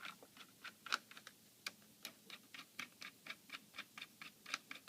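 Small screwdriver backing out tiny laptop battery screws: light, irregular clicking, several clicks a second.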